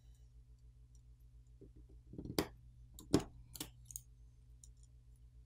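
A few sharp, faint clicks as flex-cable connectors are popped off the phone's main board by fingertip, over a faint low hum.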